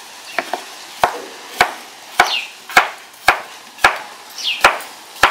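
Large kitchen knife slicing a cucumber into rounds on a wooden cutting board: a regular knock of the blade on the board with each cut, about two a second, with the crisp crunch of the cucumber.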